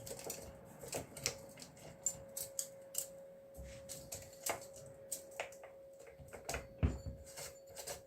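Irregular metallic clicks and taps of hand tools and chainsaw parts being handled, with a heavier knock near the end, over a faint steady hum.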